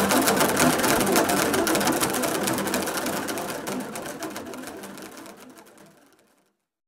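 Many boomwhackers, plastic tuned percussion tubes, struck in a fast continuous clatter of hollow pitched tones. The sound fades out steadily and is gone about six and a half seconds in.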